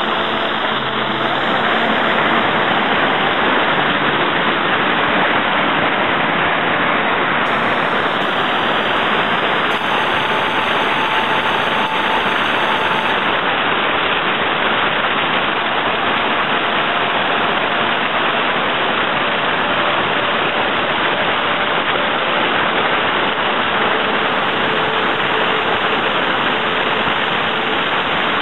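Rushing water of a mountain stream cascading over rocks, a loud, steady hiss.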